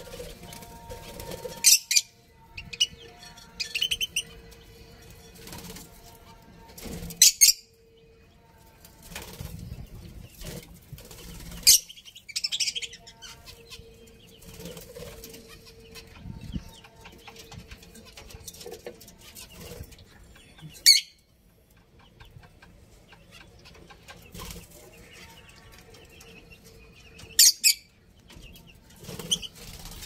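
A flock of budgerigars at a feeding bowl, chirping and chattering, with about five sudden loud bursts of wing flapping as birds flutter about.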